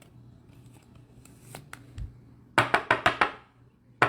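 Hands handling trading cards and their plastic packaging: a quick run of four or five sharp clicks or snaps about two and a half seconds in, and one more near the end.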